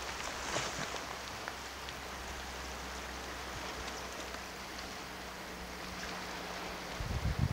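Calm sea lapping and splashing softly against shoreline rocks, a steady wash of water with small scattered drips and splashes over a faint low hum. A few low thumps come near the end.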